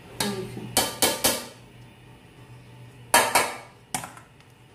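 Stainless steel strainer knocking against a steel pot, seven sharp metallic clanks with brief ringing: four in the first second and a half, then three more about three seconds in.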